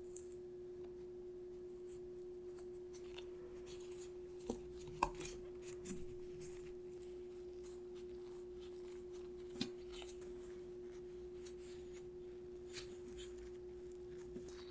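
A steady low hum with scattered faint taps and clicks over it; the sharpest taps come about five seconds in and again about nine and a half seconds in.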